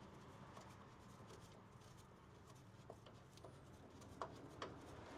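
Near silence with a few faint, sharp clicks of a hand tool working the suspension bolts, mostly in the second half.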